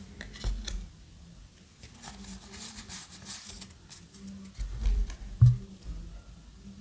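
Yu-Gi-Oh! trading cards handled by hand: soft sliding and flicking of card stock as a pack's cards are sorted. About five seconds in come a few low thumps and a sharp tap as cards are set down on the table.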